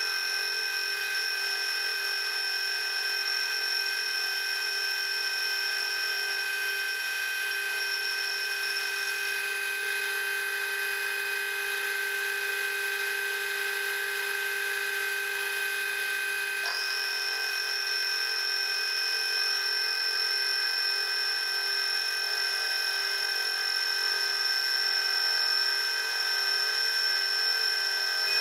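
Small bench metal lathe (CQ9332A) running at steady speed, a constant motor and gear whine made of several steady tones. A higher-pitched whine on top cuts out about a third of the way through and comes back a little past halfway.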